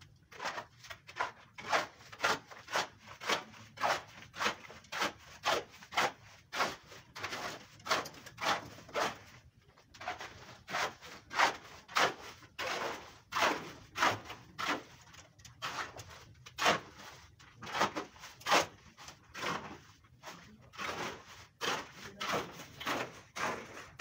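Rhythmic scraping of a hand tool on the concrete and stone floor of the tank, short strokes about two a second.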